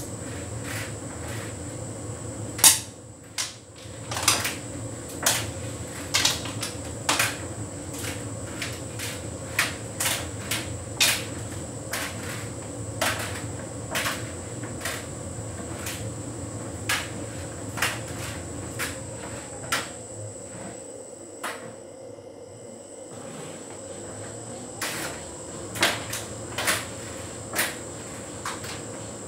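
Hotpoint heat pump tumble dryer running: a steady hum with a faint high whine, overlaid by irregular knocks and clicks of the load tumbling against the drum, roughly one a second. The hum dips briefly about two-thirds of the way through.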